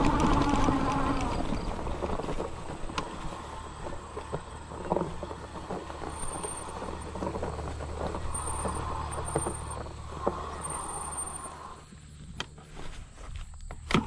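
52-volt, 750-watt fat-tire e-bike riding uphill over grass: the motor's whine fades about a second in and comes back for a few seconds later on, over a steady wind rumble on the microphone and scattered knocks from the bike on rough ground. About 12 s in the ride stops, and a few sharp clicks follow.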